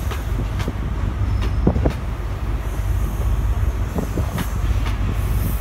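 Passenger train moving past the platform: a steady low rumble with irregularly spaced sharp clicks.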